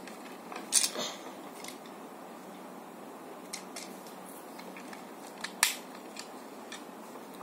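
Hard plastic parts of a Tobot toy robot clicking and knocking together as they are handled and fitted on. There are a handful of sharp clicks, the loudest about a second in and again at about five and a half seconds.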